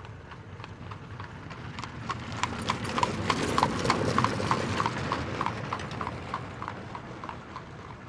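A steady clip-clop, like hoofbeats on a hard surface, about three knocks a second. It grows louder towards the middle and then fades, as if something passes by.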